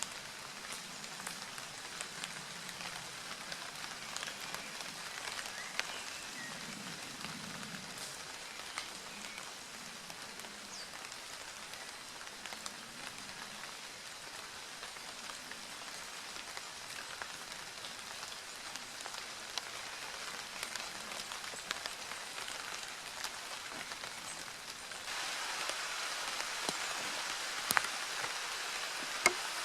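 Rain falling steadily, with scattered single drops ticking sharply. The rain grows louder near the end.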